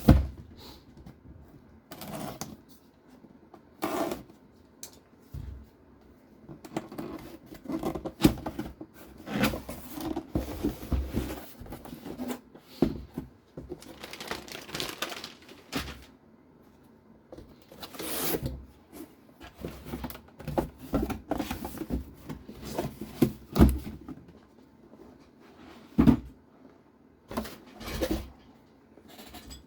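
Hands handling a new radio-controlled car and its packaging: an irregular run of clicks, light knocks and rustling, with a sharp knock at the very start and another about 26 seconds in.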